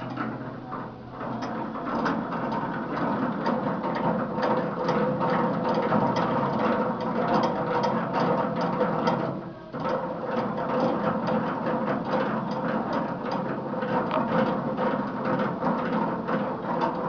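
Grill grate-lift mechanism being cranked by hand: a dense, rapid metallic clicking and rattling as the crank handle turns and the steel grate moves on its post, with a brief pause about ten seconds in.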